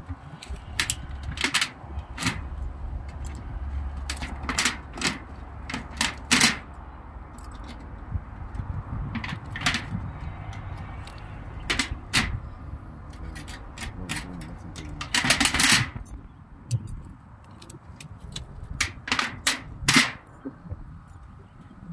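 A thin aluminium roofing sheet being cut by hand: a run of irregular sharp clicks, with a longer burst of crinkling clicks about fifteen seconds in.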